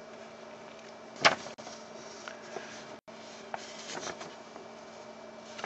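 Quiet room noise with a steady low hum, and one short sharp noise about a second in.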